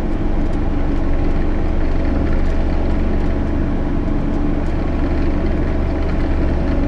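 JCB Fastrac 8250 tractor's six-cylinder diesel engine running steadily under load while pulling a plough through the soil.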